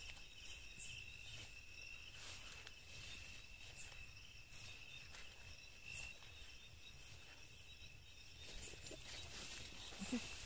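Night insects, crickets by the sound of it, keeping up one steady, faint, high trill, with a few soft rustles and taps in between.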